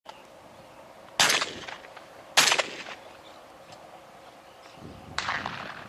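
Two gunshots about a second apart, each a sharp crack with a short tail, then a fainter, longer burst about three seconds later.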